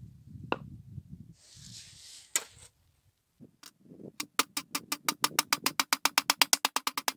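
Small hammer striking the teeth of a rusted crosscut saw blade laid on a sledgehammer head, setting the teeth: a fast, even run of sharp metallic strikes, about five or six a second, beginning about four seconds in, with a steady ringing under them. Before that, a few knocks and a scrape as the tools and blade are handled.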